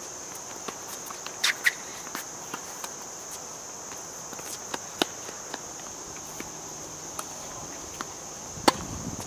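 Tennis ball hit back and forth in a rally. The nearest racquet strikes are sharp pops, one about five seconds in and the loudest near the end, with fainter hits and bounces from the far side of the court. Under them runs a steady high-pitched drone of insects.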